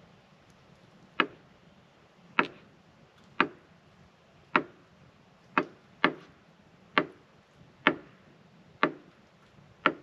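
Kitchen knife slicing avocado on a wooden cutting board, the blade knocking sharply on the board about once a second, ten times.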